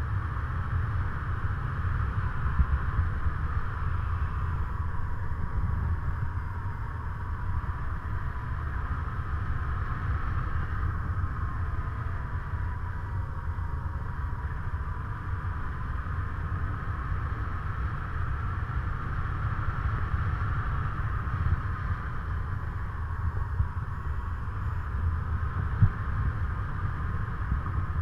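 Airflow rushing over the camera microphone of a paraglider in flight: steady low buffeting with a higher hiss that wavers slightly, and a few small knocks.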